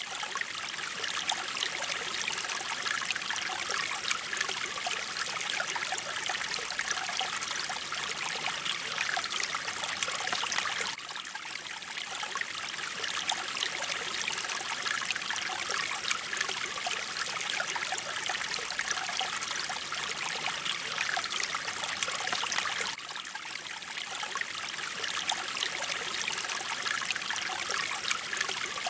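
Mountain stream flowing steadily, water trickling and splashing over rocks. The level dips briefly about every twelve seconds.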